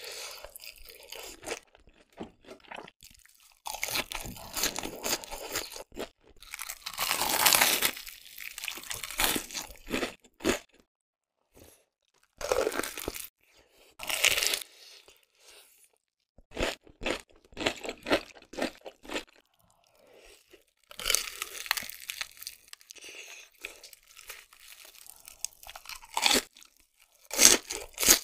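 Close-miked crunching and chewing of Hot Cheetos-crusted fried food: crisp bites and chews come in bursts, separated by short quiet pauses.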